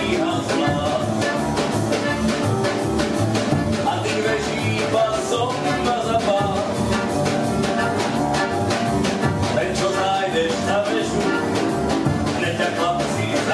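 A live small band playing a lively song with a steady beat: accordion, upright piano, double bass and drums, with a man singing into a microphone.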